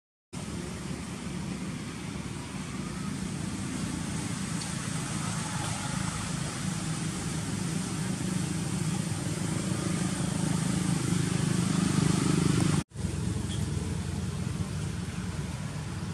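Low steady rumble like a motor vehicle running nearby, slowly growing louder over about twelve seconds and then cutting off abruptly before returning quieter.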